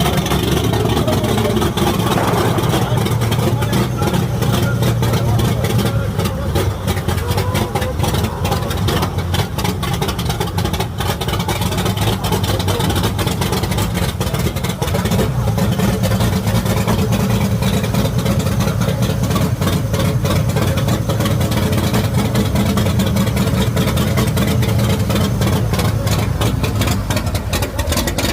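Chevrolet Opala's engine rumbling at idle through its exhaust, the revs falling back in the first couple of seconds and then holding steady.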